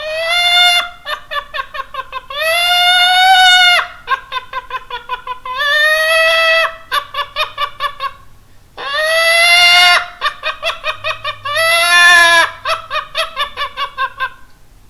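A person's vocal impression of a hen's egg-laying cackle: runs of quick, short clucks, about five a second, broken by five long, loud squawks.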